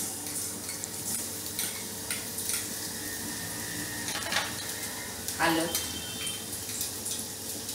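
Finely chopped garlic sizzling in hot oil in a small stainless-steel pot, with a steady hiss. A spoon clinks against the bowl and the pot rim several times as the garlic is scraped in.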